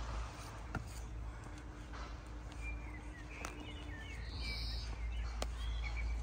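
Outdoor ambience with a steady low rumble, several short bird chirps through the middle and again near the end, and a few sharp clicks.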